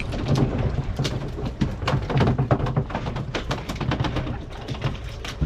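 Many irregular clicks and knocks from gear and handling on a fishing boat's deck, over a low steady hum.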